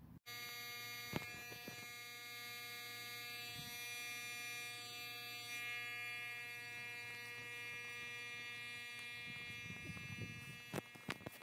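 Electronic buzzer of a wild boar deterrent sounding a steady, unchanging buzz to scare boar away from the orchard, with a couple of faint clicks near the start and near the end.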